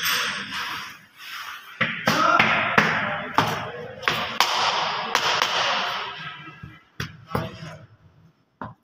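Hammer driving small nails into a wooden edge strip on a door panel: a run of sharp taps, with the last few strikes spaced out near the end.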